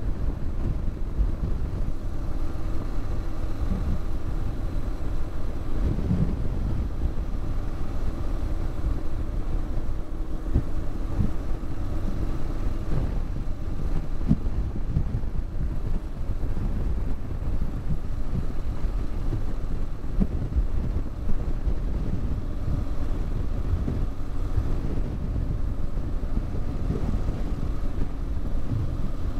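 Triumph Scrambler 1200 XE motorcycle riding at a steady cruise: an even engine note under heavy wind rumble on the helmet-mounted microphone.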